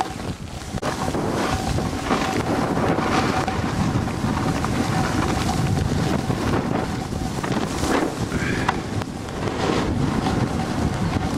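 Wind rushing over the microphone of a camera carried by a moving snowboarder, with the board scraping over packed snow.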